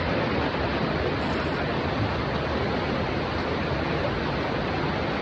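Mountain river rushing: a steady, even roar of flowing water.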